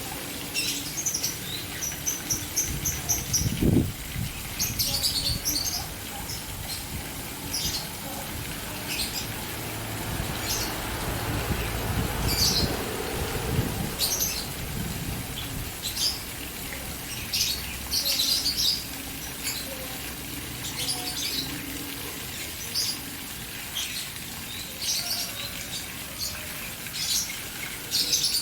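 Caged birds chirping in short, repeated high bursts over the steady splashing of a fountain. There is a single low thump about four seconds in.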